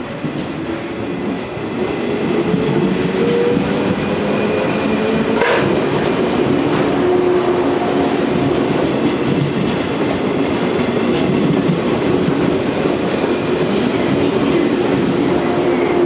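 JR 115-series electric train pulling out and passing close by: the traction motor hum rises in pitch over the first few seconds, then holds steady under the wheels clattering over rail joints. A single sharp click comes about five seconds in.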